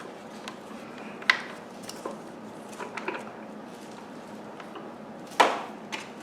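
Parts of a Hoover bagless upright vacuum being handled and fitted during assembly: two sharp knocks, about a second in and near the end, with lighter clicks between.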